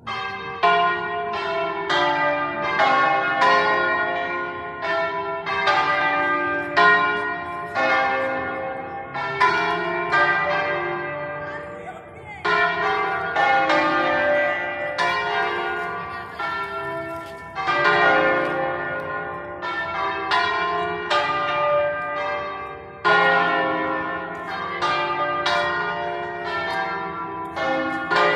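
Church bells pealing: several bells of different pitch struck in turn, about two strokes a second, each ringing on under the next. The ringing eases briefly about twelve seconds in, then picks up again.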